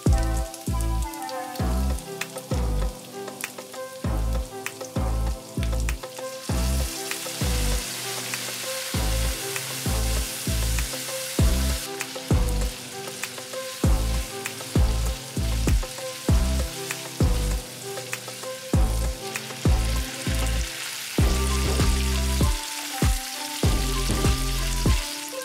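Minced pork, dried chillies and garlic sizzling as they fry in hot oil, the sizzle getting louder about six seconds in. Background music with a steady bass beat plays under it.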